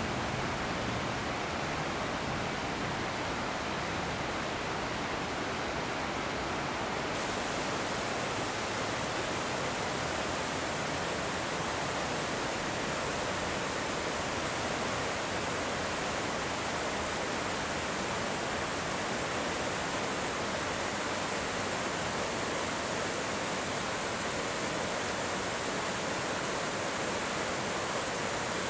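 Hinterrhein river rushing over rocks and boulders in a gorge: a steady, even rush of water. About a quarter of the way in the rush turns brighter and more hissing and stays so.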